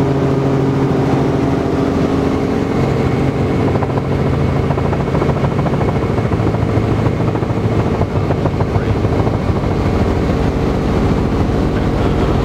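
Robinson R44 Raven helicopter heard from inside the cabin: its main rotor and six-cylinder Lycoming piston engine run in a steady, loud drone as it comes in to land, the pitch of the drone shifting slightly about two seconds in.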